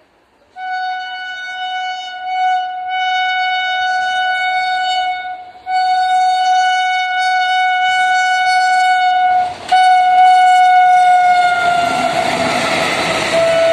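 WAG9 electric locomotive's horn sounding three long blasts as it approaches at speed. During the last blast the pitch drops as the locomotive passes, and the rushing noise of the passing train builds up under it.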